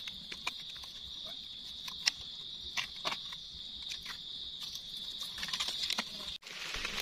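A steady, high-pitched insect drone from the forest, with scattered small clicks and scrapes as a knife cleans soil off a mushroom stem among dry leaves. The drone cuts off suddenly near the end.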